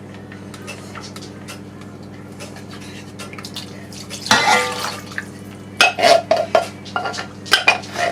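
Homemade chicken stock swished around inside an empty metal soup can and tipped into the casserole dish, then a run of sharp metallic clinks and knocks of the can and spoon against the dish, over a low steady hum.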